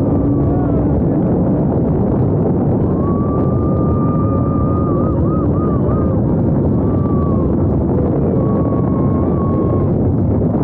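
TRON Lightcycle / Run roller coaster running at full speed: a steady rush of wind over the ride-mounted microphone and the rumble of the train on its track. A rider's high, wavering scream rises over it about three seconds in, with shorter shouts near the end.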